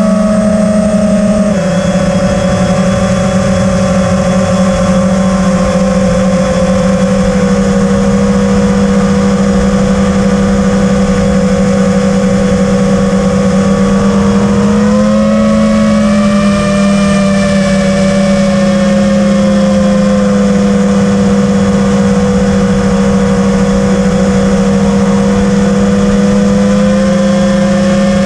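FPV quadcopter's electric motors and propellers whining steadily, heard from the camera on board. The pitch drifts slightly with throttle, dipping and then jumping up about halfway through.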